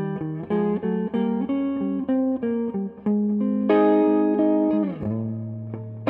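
Koa-topped Echopark Ghetto Bird electric guitar with '57 humbucker pickups, played through an amplifier: a run of picked single notes and small chords, then a louder chord a little past halfway that is left to ring out.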